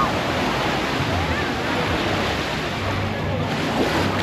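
Steady wash of surf on a beach, with faint voices of other people in the background.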